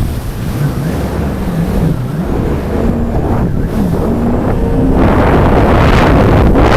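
Jet ski engine running, its pitch wavering up and down, under heavy wind buffeting on the microphone. About five seconds in, a louder rushing noise comes in and stays.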